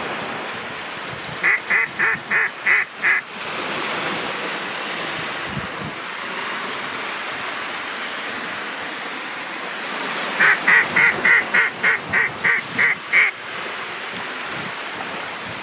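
A mallard duck call blown in quick strings of hen-style quacks. There are about six quacks a second and a half in, then a longer run of about ten quacks some nine seconds later. Small waves lap steadily on the shore underneath.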